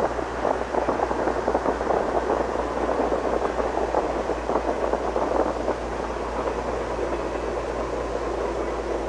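A train rolling past close by: a steady rushing noise of the cars and wheels on the rails, with a low steady hum underneath.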